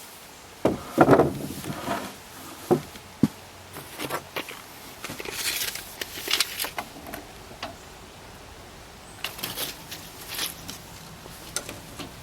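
Scattered knocks and clatter with bursts of rustling between them; the loudest knock comes about a second in.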